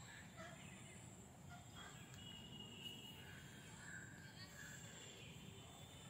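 Faint outdoor garden ambience with scattered distant bird calls and chirps, a few short notes held about a second from the middle onward.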